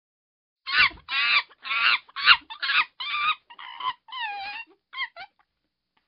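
A chicken calling in a quick, irregular series of about nine short squawks, several falling in pitch, the later ones a little longer.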